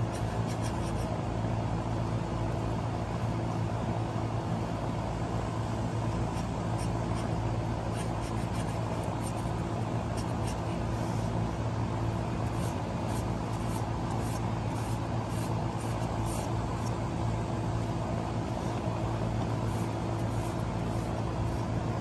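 A steady low mechanical hum with an even, unchanging pitch, with faint, short high-pitched ticks or chirps scattered through the middle.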